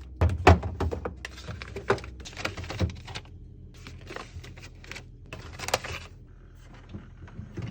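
Irregular knocks, clicks and rustling as containers and food items are set into a refrigerator, the loudest knock about half a second in.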